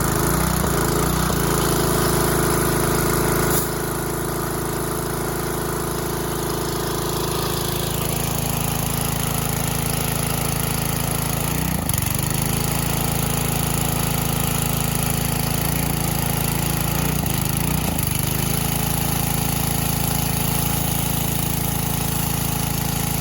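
Small petrol engine of a gas pressure washer running steadily, with its note dipping briefly twice in the second half.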